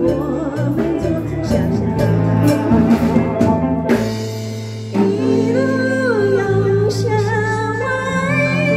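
A woman singing a melody into a microphone over a live band of electric keyboard and guitars, with drum beats in the first half. The accompaniment thins briefly about four seconds in, and her voice then comes back strongly over held chords.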